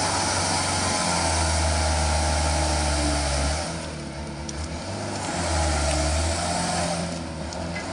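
Diesel engine of a heavily loaded Fuso truck labouring up a muddy slope, its engine note dropping off twice, about four seconds in and again near the end, then coming back. The truck is short of power on the climb, described as 'out of breath'.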